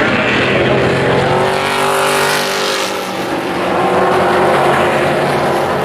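A pack of Pro Truck oval-track race trucks running together, engines loud and steady. About two seconds in, one engine's pitch sweeps as a truck goes past close by.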